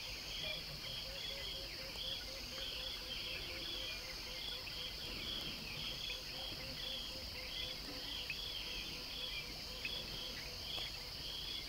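Insects in the bush: a steady high drone with an evenly repeated chirp a little under twice a second, and a faint low note repeating about four times a second.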